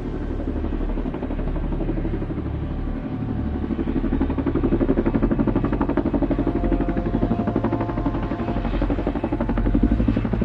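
A low mechanical drone pulsing rapidly and evenly. It swells about halfway through and again near the end.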